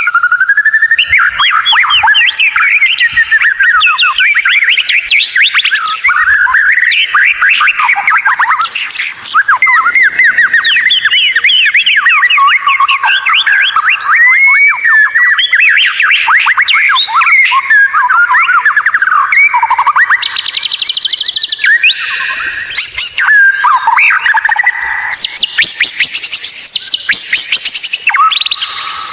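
White-rumped shama (murai batu) singing a long, unbroken stream of fast sliding whistled notes, with harsher buzzing phrases in the last third. This is a masteran song recording, played for caged birds to learn from.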